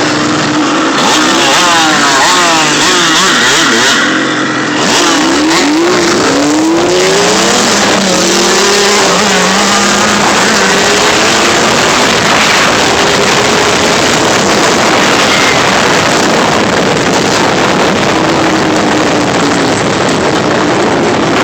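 Off-road vehicle engine running hard on a trail ride. Its pitch sweeps up and down several times over the first few seconds as it is revved through the gears, then holds fairly steady, over a constant rush of noise.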